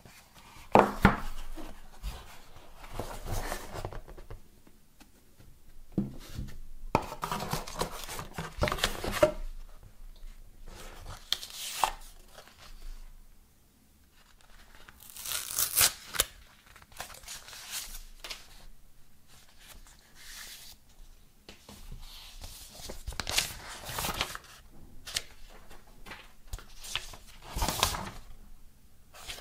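Paper leaflets and printed card inserts from a headphone box rustling and crinkling as they are handled and unfolded, in bouts of a second or two with short pauses between.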